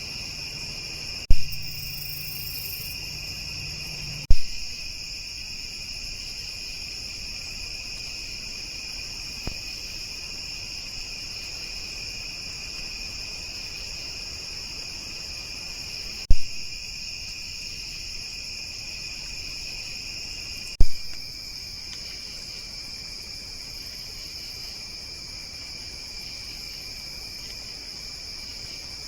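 Steady chorus of night insects, a continuous high-pitched trilling drone. Four sharp clicks break it, with a brief low hum between the first two.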